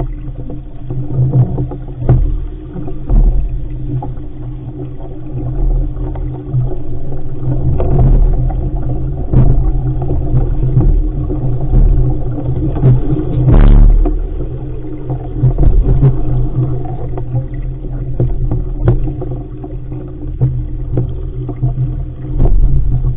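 Wind buffeting the microphone of a camera mounted on an RS500 sailing dinghy, with water rushing past and slapping against the hull as it sails through chop. Scattered knocks of waves hitting the hull, and a louder splash of spray about halfway through.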